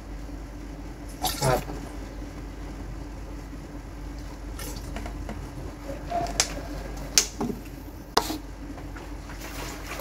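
Liquid poured from a small plastic bottle into a large plastic jug, with scattered sharp clicks and knocks as the plastic bottles and screw caps are handled.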